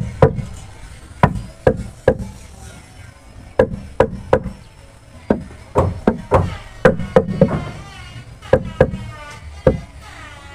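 Hammer striking a wooden boat frame: about eighteen sharp blows, each with a short ring, coming in quick clusters of two or three with brief pauses between.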